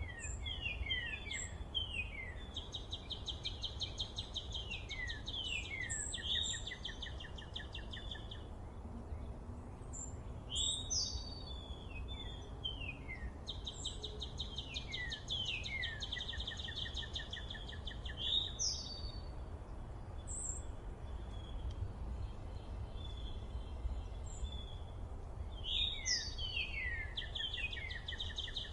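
Songbirds singing outdoors, repeating phrases of quick down-slurred whistles that run into fast trills every few seconds, over a steady low rumble.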